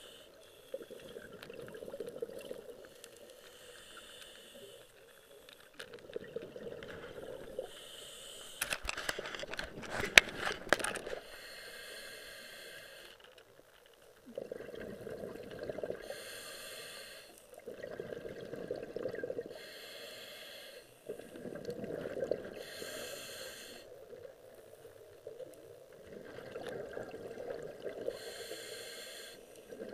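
A scuba diver breathing through a regulator underwater, in a slow cycle every few seconds: a hissing inhale through the demand valve, then a bubbling rumble as the exhaled air escapes. A burst of sharp clicks and rattling from about nine to eleven seconds in is the loudest sound.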